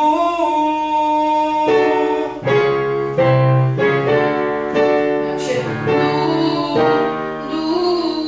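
Singing with piano accompaniment: a voice holds long notes, and piano chords come in about two seconds in.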